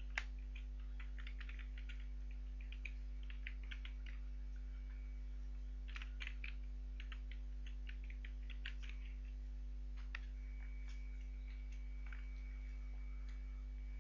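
Typing on a computer keyboard: irregular keystroke clicks, quick runs over the first ten seconds and only a few after, over a steady low electrical hum.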